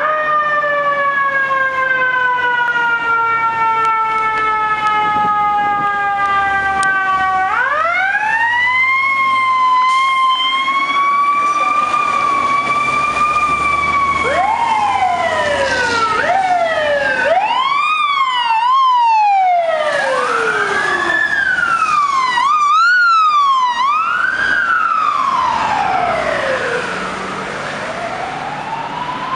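Sirens of FDNY fire apparatus responding: a long wail falls slowly for the first several seconds, then winds sharply back up about a quarter of the way in. In the second half, overlapping sirens rise and fall every second or two, breaking twice into a fast yelp as the trucks pass.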